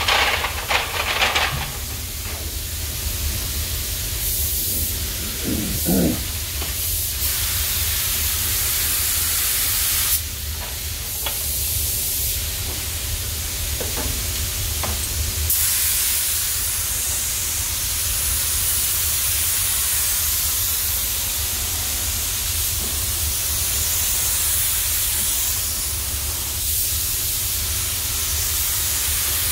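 Compressed-air paint spray gun hissing as paint is sprayed, in short spells at first and then steadily from about halfway through. Underneath runs the steady low hum of the spray booth's ventilation.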